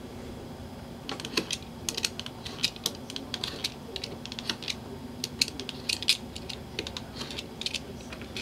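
Snap-off utility knife trimming the corner of a leather strap round a coin's edge in many short cuts against a cutting mat: a quick, irregular series of sharp clicks starting about a second in.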